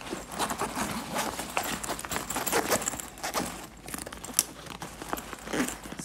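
A zipper on a backpack being pulled shut in irregular strokes, mixed with rustling and small knocks from the bag being handled.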